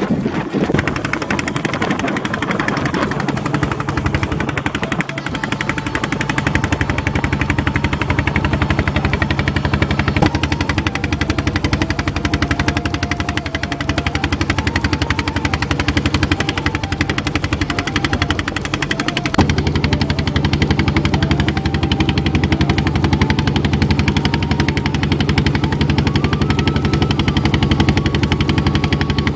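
Small river boat's engine running steadily, a rapid stream of exhaust pulses; it gets louder and deeper about two-thirds of the way through.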